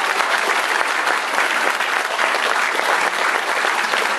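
Audience of schoolchildren applauding, a steady, dense clapping throughout.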